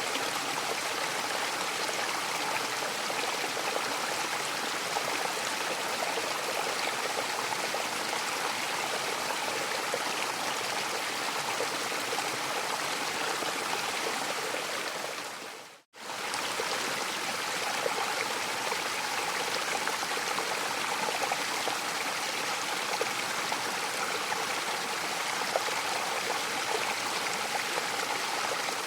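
Mountain waterfall rushing steadily. About halfway through it fades to silence for a moment and comes straight back, like the seam of a looped recording.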